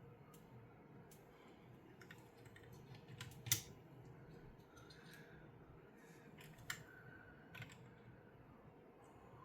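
Small plastic Lego pieces being handled and snapped together: scattered light clicks, the loudest about three and a half seconds in.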